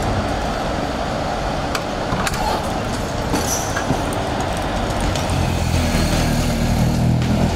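Street noise: steady road traffic with a few faint clicks.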